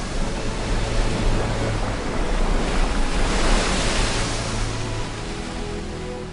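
Rushing, churning river water surging back from around a wader's feet as the river parts, swelling loudest about three to four seconds in and easing off near the end.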